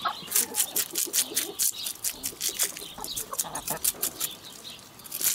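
A knife scraping the scales off a crucian carp in quick, repeated strokes, about four short rasps a second.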